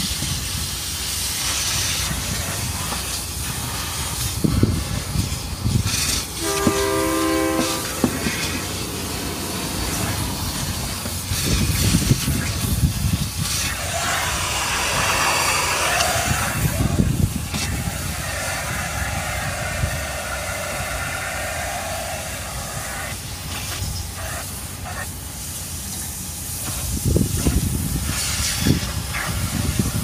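Vacuum cleaner running steadily with a loud rushing hiss as it sucks at the van's interior, its tone shifting around the middle. About six seconds in, a brief hooting tone sounds for about a second.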